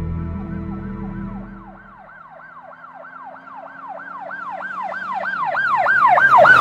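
A fast yelping siren, each sweep falling in pitch, about three sweeps a second, growing steadily louder from about two seconds in. Low music fades out during the first two seconds.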